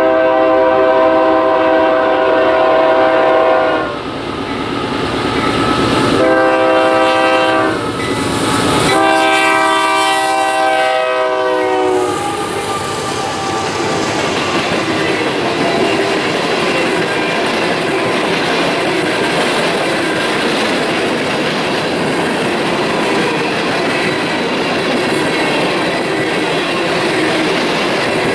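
Union Pacific GE AC4400CW locomotive's multi-tone air horn sounding for a grade crossing. It gives a blast that ends about four seconds in, a shorter one, then a long one that drops in pitch as the locomotive passes, about twelve seconds in. Then a string of empty coal hopper cars rolls past with steady wheel noise and clickety-clack over the rail joints.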